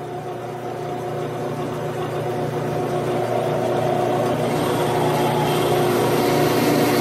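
Grizzly G9972Z metal lathe running, its spindle turning a four-jaw chuck with a steady machine whine that grows louder over the first few seconds. From about four and a half seconds in, a twist drill fed from the tailstock cuts into the brass workpiece, adding a faint high hiss.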